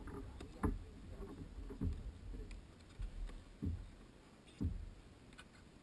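Water slapping against a kayak hull: soft low knocks at irregular intervals of about a second.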